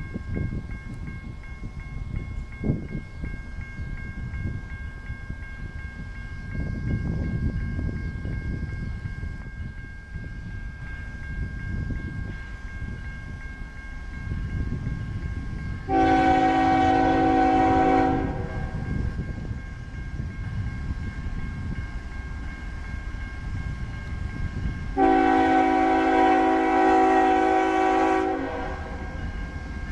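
Multi-note air horn of a Union Pacific GE ES44AC diesel locomotive leading a freight train, sounding for a grade crossing as it approaches: two long blasts, about two seconds and then about three and a half seconds long, roughly seven seconds apart, over the train's low rumble.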